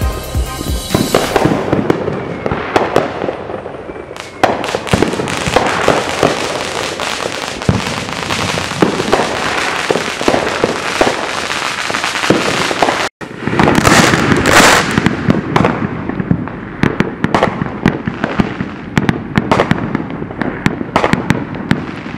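Fireworks and firecrackers going off in a dense, rapid run of pops and crackles. A sudden brief gap comes about thirteen seconds in, and a louder stretch of bangs follows.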